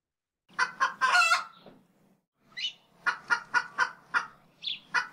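A rooster crowing, then clucking: a few quick notes running into a long held call, a rapid run of about six short clucks, and a second long crow starting near the end.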